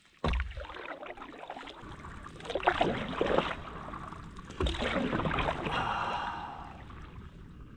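Stand-up paddleboard paddle strokes: the blade digging into the lake water with splashing and dripping, two main strokes about two seconds apart, and a thump right at the start.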